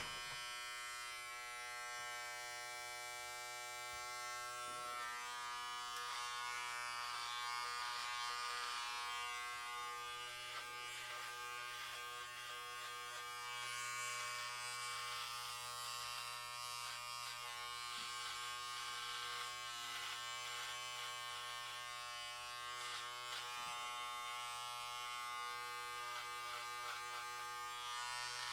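Electric hair clippers buzzing with a steady hum, with irregular short rustling strokes as the blades cut through hair.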